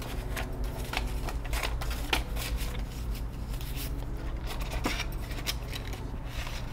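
Paper banknotes being handled: irregular crisp rustles and flicks as a fan of dollar bills is sorted and slid into a plastic binder envelope pocket, over a low steady hum.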